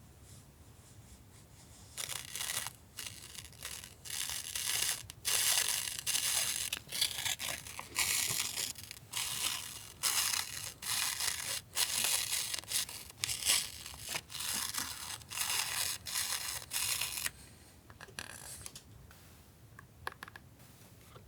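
Packaging being torn open and rustled by hand. A run of irregular rasping tears starts about two seconds in, lasts about fifteen seconds, and then trails off into a few faint rustles.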